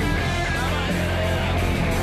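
Rock band playing live, electric guitar over a steady, heavy bass line.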